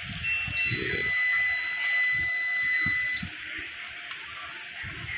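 Fronus 6 kW solar inverter's built-in buzzer sounding as the unit is switched on: a short chirp, then one steady high beep of about two and a half seconds that cuts off abruptly.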